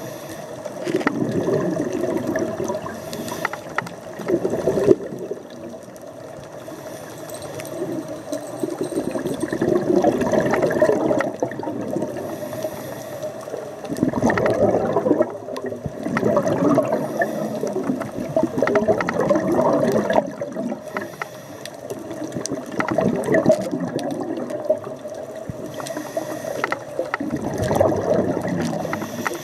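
Scuba divers' exhaled bubbles gurgling out of their regulators, heard underwater, swelling and fading in surges a few seconds apart with each breath.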